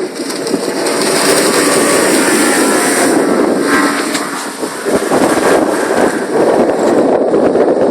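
A 2001 Hurricane 248 GS deck boat running at speed under its 200-horsepower Yamaha Saltwater Series outboard, heard as a loud, steady rush of wind and water over the motor. The sound builds over the first second, then holds steady.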